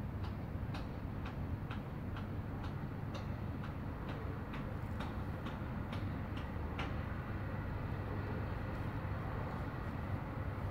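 Steady low rumble of city traffic, with a run of light clicking footsteps on asphalt, about two a second, that stops about two-thirds of the way through.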